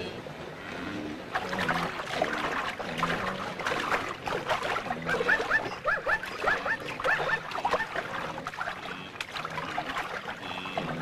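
Water splashing and sloshing as a spotted hyena wades through shallow water. It starts about a second in and goes on as a busy run of small splashes. Near the middle comes a quick run of short high chirps.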